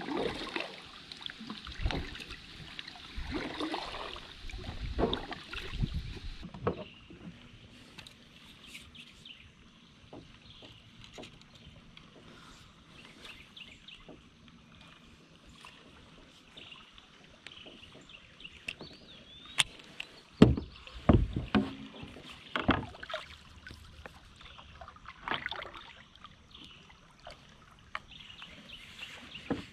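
Kayak being paddled: irregular splashes of the paddle blades and knocks against the plastic hull. A few louder knocks come about twenty seconds in.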